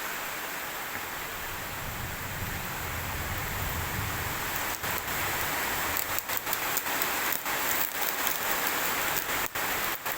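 A steady, even hiss of noise, with a brief low rumble about two to four seconds in and several short dropouts in level in the second half.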